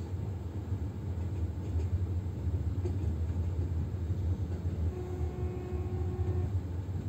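Steady low rumble of a passenger train running along the track. A faint steady tone sounds for about a second and a half, starting about five seconds in.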